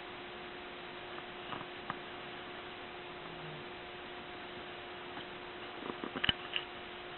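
Sleeping domestic cat snoring, one short low snore about halfway through, with a steady electrical hum underneath. The owner later wondered whether a tumour caused the snoring. A few light clicks come early, and a louder cluster of clicks and knocks comes near the end.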